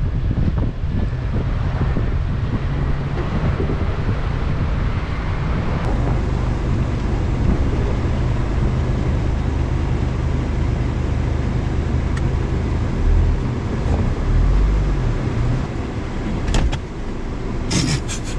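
GMC Canyon pickup driving slowly along a rough off-road trail: steady engine and drivetrain drone with tyre and trail noise. A few heavier low thumps come about two-thirds of the way through, and sharp knocks come near the end.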